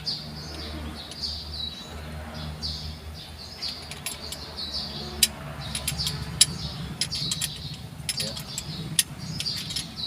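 Small birds chirping over and over, with sharp metallic clinks of hand tools on the engine here and there and a steady low hum beneath.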